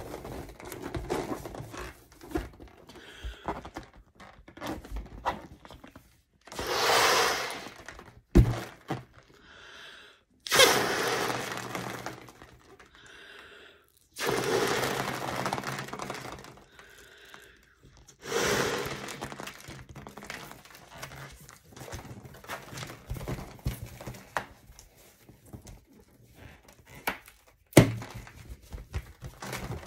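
Clear latex confetti balloon being blown up by mouth in about four long breaths, each a rush of air into the balloon. Between the breaths and near the end come rubbery creaks and a few sharp snaps and knocks as the stretched latex is handled.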